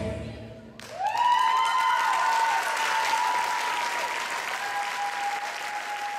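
The music stops, and about a second in the audience breaks into applause, with high held cheers over the clapping.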